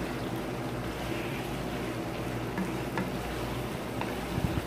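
Chicken drumsticks and cubed potatoes frying in oil in a non-stick pan: a steady sizzle, with a few faint ticks and a low knock near the end as a wooden spatula comes in to stir.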